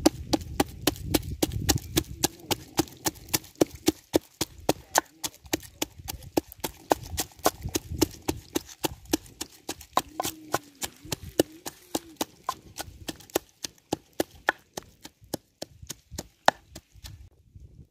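Pestle pounding chillies and garlic in a mortar: steady, rapid knocks about three to four a second, stopping shortly before the end.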